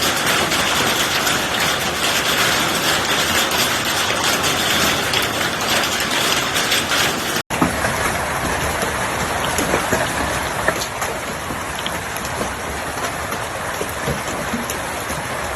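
Hail and heavy rain pelting down in a dense, steady patter of small impacts. It cuts out for an instant about halfway through and then resumes, slightly quieter.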